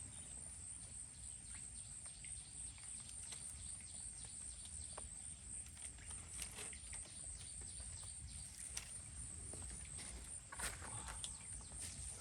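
Outdoor ambience: a steady high-pitched hum with scattered light clicks and knocks.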